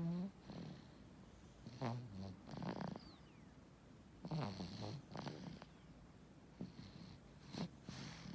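Snoring: three rattling, fluttering breaths a few seconds apart, each in two parts.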